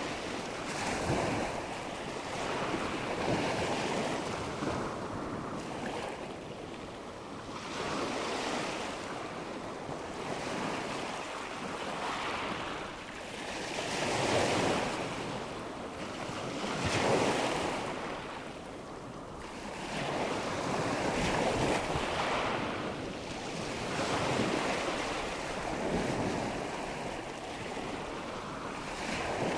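Ocean surf: waves breaking and washing in, the hiss swelling and ebbing every few seconds.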